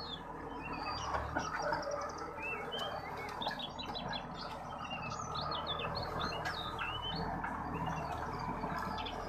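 Birds chirping, many short calls throughout, over the steady low hum of a four-wheel tractor's engine as it pulls a disc plough through the soil.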